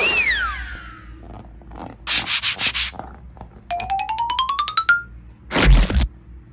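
A run of short, separate noises: a falling whistle-like glide, a scratchy rubbing burst, a rising pitched sweep made of rapid ticks, then a low thump near the end.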